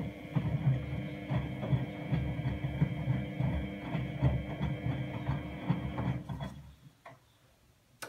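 Miele Novotronic W832 front-loading washing machine in its wash phase, the drum turning wet laundry in soapy water with irregular sloshing and thumping over a steady motor hum. The sound stops about six seconds in and goes near silent.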